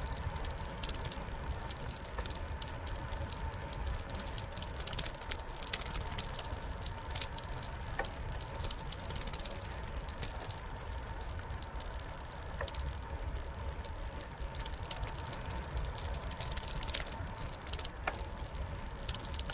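Bicycle riding along a concrete path: steady low wind rumble on the microphone and tyre noise, with scattered clicks and rattles from the bike.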